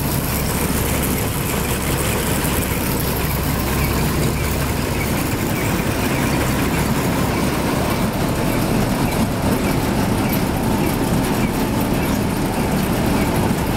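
Claas Matador Gigant combine harvester running at a standstill, its six-cylinder diesel engine and threshing drum turning over with a steady, dense mechanical rattle and hum.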